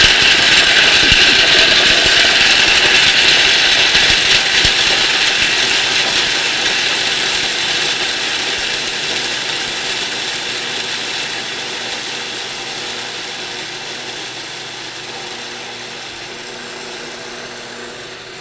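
Food processor grinding boiled, peeled almonds into coarse meal: a loud whirring, with the nuts clattering against the bowl in the first few seconds. It grows smoother and gradually quieter as the almonds are ground finer.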